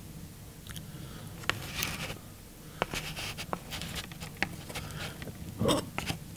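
Close-miked eating sounds: chewing and wet mouth smacks, with a few sharp clicks from chopsticks picking food from a plastic tray. The loudest smack comes about a second before the end.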